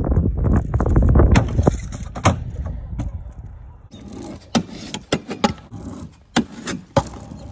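Stunt scooter wheels rolling over rough asphalt in a loud, rough rumble. From about four seconds in the rolling is quieter, broken by many sharp clacks and knocks of the scooter on the pavement and around a wooden grind box.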